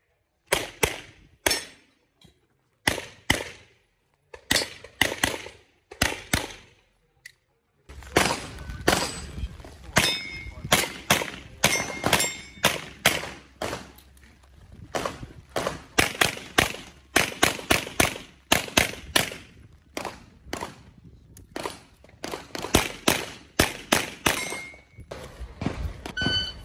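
Strings of rapid pistol shots, dozens in all, fired in quick pairs and runs. Some hits are followed by a brief metallic ring from a steel target.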